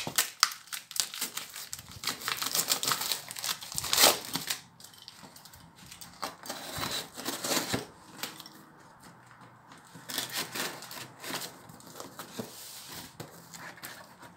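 Packing tape and cardboard of a shipping box being cut and torn open with a small axe blade: irregular scraping, crinkling and tearing, with a few sharp knocks, the loudest about four seconds in.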